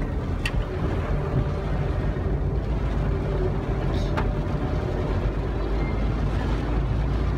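Steady low vehicle rumble, with two faint clicks, one about half a second in and one about four seconds in.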